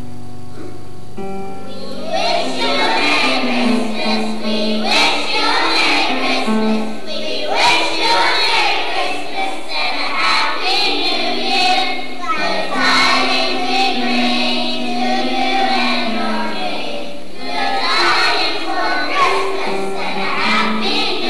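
Children's choir singing a song together. A held instrumental chord rings at first, and the voices come in about two seconds in.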